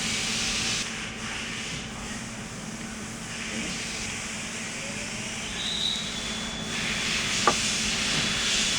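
A small hand cutting tool scraping and rubbing as it cuts away a section of shrunk tubing around the joystick, with one sharp click about seven and a half seconds in.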